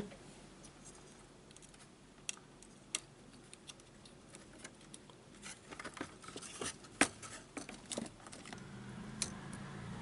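Faint clicks and light scraping of a replacement power-supply IC being handled and its pins pushed into a washing machine control board, with a few sharper clicks as the board is handled and turned over. A low hum comes in near the end.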